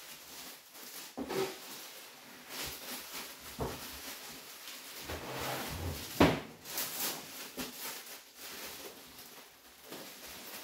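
Plastic stretch wrap rustling and crinkling as a heavy, shrink-wrapped resin 3D printer is handled and lifted, with a sharp knock about six seconds in.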